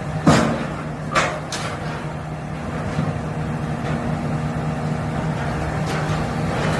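Excavator's diesel engine running steadily while its hydraulic beam shear works steel, with two sharp metal bangs about a second apart near the start.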